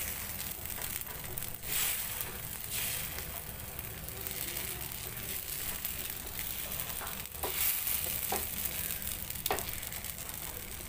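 Sooji dosa batter sizzling steadily on a hot oiled tawa as it is spread with a ladle, with a few light taps of the ladle against the pan in the second half.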